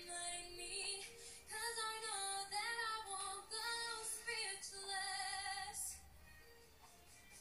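Background music with a woman singing a melody; the singing drops away about six seconds in, leaving only faint music.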